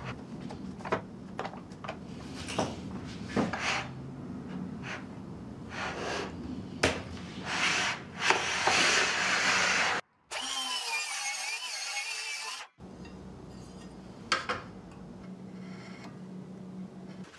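Wood being handled and worked by hand: boards rubbing and scraping against each other, with many sharp knocks and clacks. A louder scraping or sawing stretch comes about halfway through. It is followed by a short separate clip with a wavering high whine from a tool.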